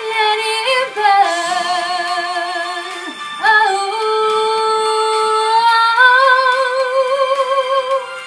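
A woman singing long wordless held notes with vibrato, sliding up or down to a new pitch about every one to three seconds.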